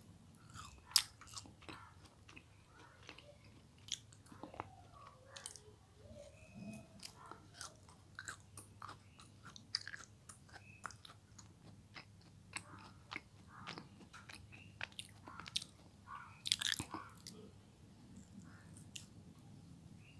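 A child chewing and biting mango jelly close to the microphone: irregular wet mouth clicks and smacks, with a sharp louder click about a second in and a quick cluster of them near the end.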